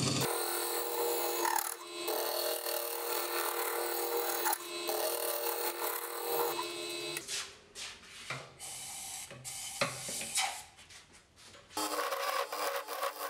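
Turning tool cutting wood on a running lathe: a hook tool scraping the end grain inside a spinning wooden cylinder, a steady rasping cut for about seven seconds, then short broken-off cuts. Near the end, a tool cutting the outside of the blank in a steady stream.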